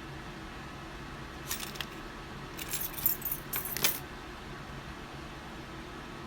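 Small metal objects jingling and clinking in two short spells, a brief one about a second and a half in and a longer, louder one around three to four seconds in, over a steady low hum.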